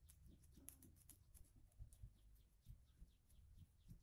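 Near silence, with faint irregular soft ticks and rubbing from fingers working a wet paste over the back of a hand.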